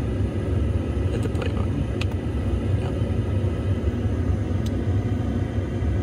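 A steady low rumble inside a pickup's cab, with a few faint clicks.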